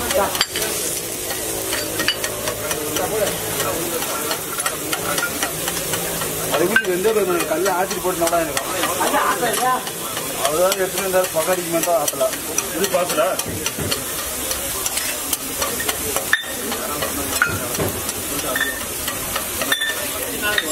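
Beaten eggs sizzling on a hot oiled flat griddle while a metal spatula scrapes and stirs them, with frequent clicks and taps of the spatula on the iron plate.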